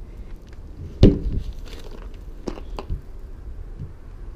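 A single loud thump about a second in with a short ring, followed by a few lighter clicks and knocks, over a steady low outdoor rumble.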